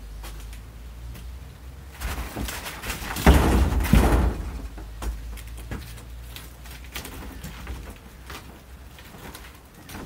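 Heavy log rounds being shifted and rolled across the floor of an enclosed horse trailer: a scraping rumble about two seconds in, then heavy thuds, echoing in the metal box, with the loudest about three to four seconds in. Lighter knocks and clunks follow as the wood is handled.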